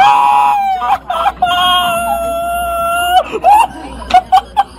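A person screaming: two long, steady, high-pitched shrieks, the second held for nearly two seconds, then a few short sharp yelps near the end.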